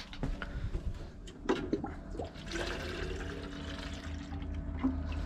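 A few clunks from handling plastic watering cans, then from about two and a half seconds in a steady rush of water pouring into a plastic watering can as it fills.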